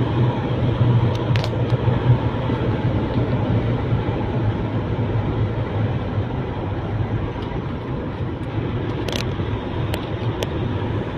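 Engine and road noise inside a moving car's cabin: a steady low drone with tyre hiss, and a few short clicks.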